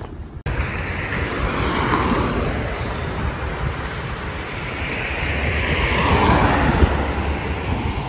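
Wind rumbling on a phone's microphone outdoors, with a rushing noise that swells up and fades twice, starting abruptly about half a second in.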